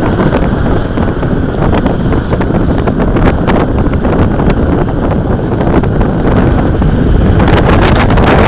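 Wind buffeting the microphone aboard a sailboat under way: a loud, steady rumble that grows louder and brighter near the end.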